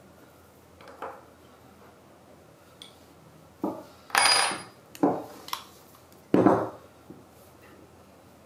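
Steel and bronze machine parts and an Allen key handled and set down on a wooden workbench: several clinks and knocks, bunched from about three and a half to seven seconds in. The loudest, just after four seconds, has a brief metallic ring.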